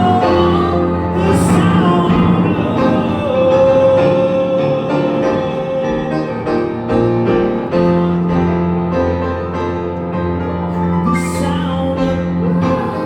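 Live band music from a concert performance of a slow song, with sustained chords and a long held note. There are brief bright splashes about a second and a half in and again near the end.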